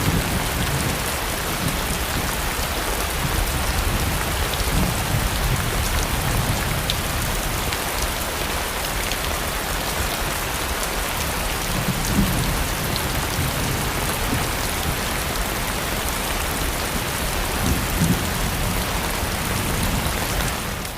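Rain sound effect: steady, heavy rainfall hissing on a surface, with a few low rumbles about halfway through and near the end. It starts and cuts off abruptly.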